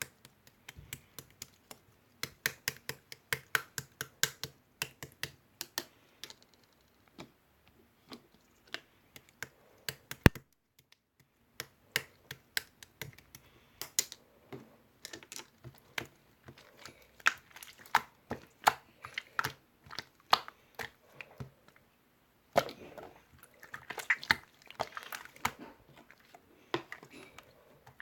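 Marbled slime being worked by hand, giving rapid sticky clicks and small air-bubble pops. There is a short pause about ten seconds in, and a denser burst of squishy crackling about two-thirds of the way through.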